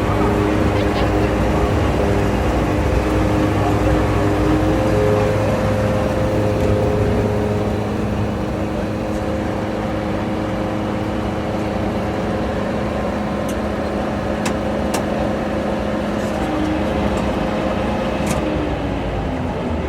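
Preet combine harvester's diesel engine running steadily. It eases off slightly about seven seconds in, and a few sharp clicks come in the second half.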